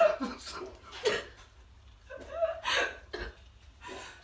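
Stifled laughter: short breathy giggles and gasps with no clear words.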